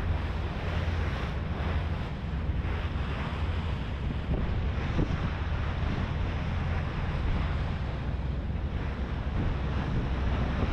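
Wind buffeting the microphone over the steady low drone of a HADAG harbour ferry under way and the rush of water along its hull.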